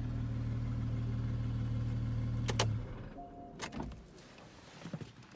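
The 2014 Porsche 911 Carrera S's naturally aspirated 3.8-litre flat-six idling steadily, then shut off about two and a half seconds in, right after a couple of sharp clicks. A short beep and another click follow, then soft handling noises.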